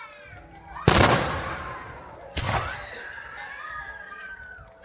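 Aerial firework shells bursting: a loud bang about a second in that dies away slowly, then a weaker second bang about a second and a half later.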